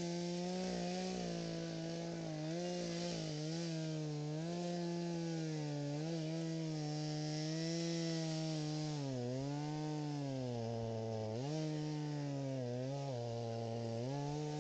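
Small engine running steadily at high speed, its pitch dipping briefly several times in the second half as the engine is loaded, then recovering.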